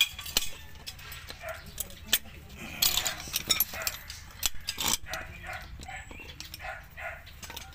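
Sharp metal clicks and clinks, several in a row, as pliers and fingers fit a steel parking-brake lever and its lock clip onto a drum brake shoe. Short pitched yelps sound in the background between the clicks.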